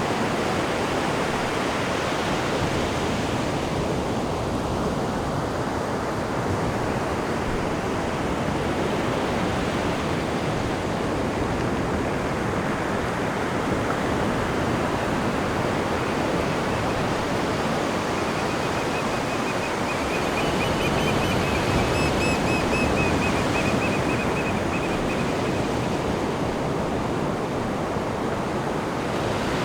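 Atlantic surf washing steadily onto the beach below the cliffs, a continuous rushing swell that rises a little past the middle. Over it, a quick run of high chirps lasts several seconds in the second half.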